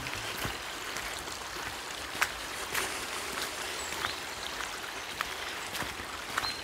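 Steady rush of a small stream flowing, with soft footsteps about every half second or so.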